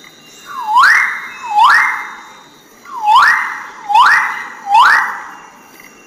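Male magnificent riflebird calling: five loud, rising whistles, each dipping slightly and then sweeping up steeply to a brief held note, given as a pair and then, after a short pause, a run of three.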